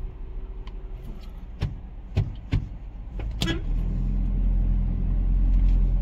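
A motor vehicle on the road: a low engine and road rumble with a few short knocks, then a little past halfway a louder, steady engine drone swells in and holds.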